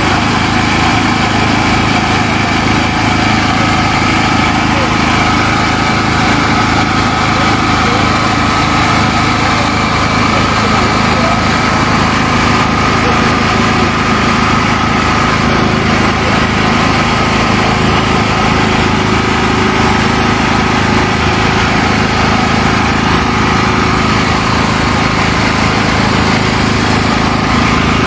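Small portable generator engine running steadily at a constant speed.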